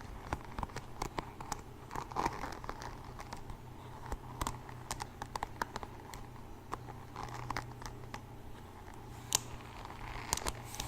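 Close-up ASMR handling sounds: irregular crinkling and rustling with many small sharp clicks as objects are handled near the microphone.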